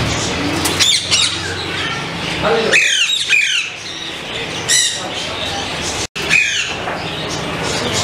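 Parrots squawking: sharp, falling calls repeated about five times, over a low steady hum.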